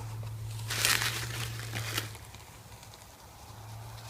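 Packaging being handled, rustling and crinkling, loudest about a second in, with a few light clicks, then quieter.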